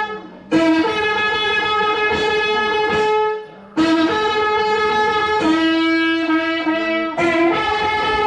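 A loud wind instrument holding long notes and stepping between a few pitches, with two short breaks for breath.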